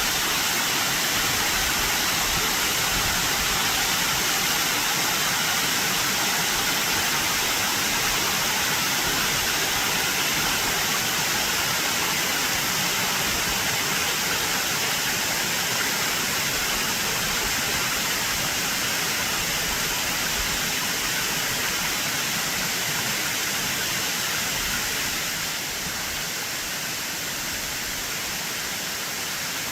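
Waterfall cascading off a cliff at high spring-runoff flow: a steady, full rush of falling water, dropping slightly in level about 25 seconds in.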